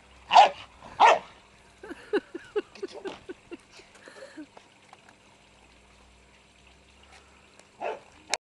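Staffordshire bull terrier barking twice, loudly, then letting out a quick run of short yips. A single bark follows near the end.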